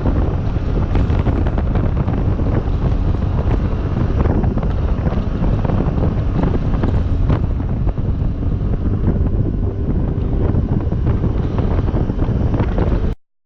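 Loud wind buffeting the microphone of a Suzuki Burgman 200 scooter ridden at road speed, with the vehicle's running noise underneath. It cuts off suddenly near the end.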